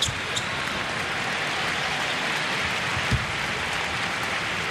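Arena crowd noise: a steady din from the packed stands at a basketball game, with a single basketball bounce on the court about three seconds in.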